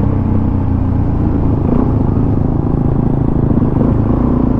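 Suzuki DR-Z400 supermoto's single-cylinder four-stroke engine running steadily under way, a loud, even rumble from the rider's own bike.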